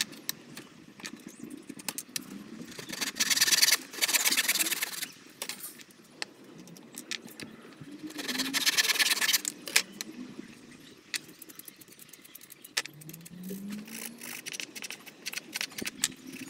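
Hand saw cutting through a small piece of timber in two spells of quick strokes, about three seconds in and again about eight seconds in. Between and around them, wood and tools knock and click as they are handled on the bench.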